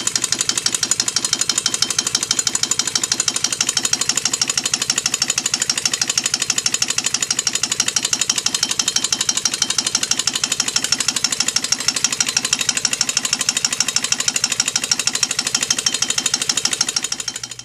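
Twin-cylinder compressed-air engine built from two weed-trimmer engines, running backwards with a fast, even stream of exhaust puffs and mechanical knocking. It dies away near the end.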